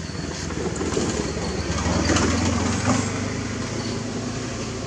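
Low engine hum with a noisy haze over it, swelling to its loudest about two seconds in and then easing off.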